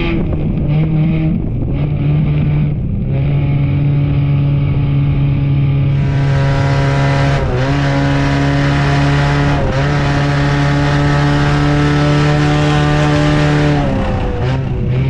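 Enduro race car's engine running at steady high revs, with brief dips in pitch about seven and a half and nine and a half seconds in, and a drop near the end.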